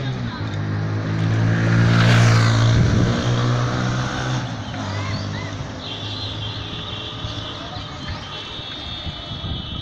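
Street traffic heard from a moving vehicle: a steady low engine hum that fades after about five seconds, with a rush of passing noise about two seconds in, and a high steady tone in the last few seconds.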